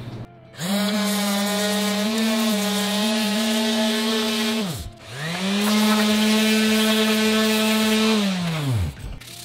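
Electric power sander run twice on a 3D-printed plastic part. Each time it spins up to a steady high whine, holds for about four seconds, then winds down.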